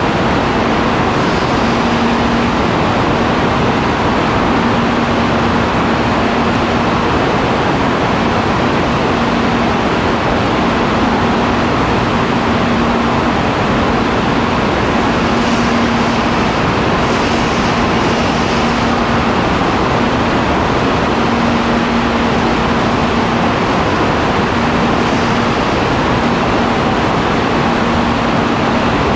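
CRH380B high-speed electric multiple unit standing at a platform with its cooling fans and ventilation running: a steady, loud rushing noise, with a low hum that cuts in and out every second or two.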